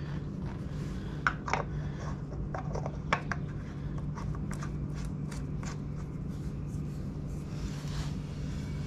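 Aluminum grease cap being screwed by hand onto a trailer wheel hub: irregular small clicks and light scraping of the cap, its threads and fingers, most of them between about one and six seconds in, over a steady low hum.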